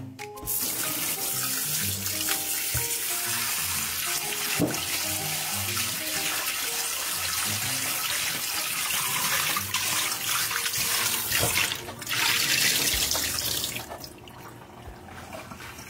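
Kitchen tap running into a glass bowl of raw chicken drumsticks in a stainless-steel sink while they are rinsed and rubbed by hand. The water stops about two seconds before the end.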